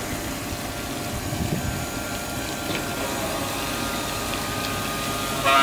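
Steady hiss and splash of coolant water spraying off a marble block during robotic CNC carving, with a faint steady machine whine underneath.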